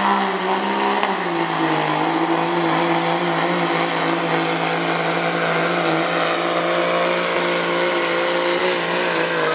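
Dodge Ram pickup's Cummins turbo-diesel running flat out under full load while pulling the weight sled. The engine note dips slightly about a second in as the sled bites, then holds steady.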